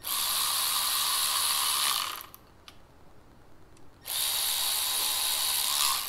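Cordless electric ratchet running twice, about two seconds each with a pause between, driving screws back into an electronic accelerator pedal's housing.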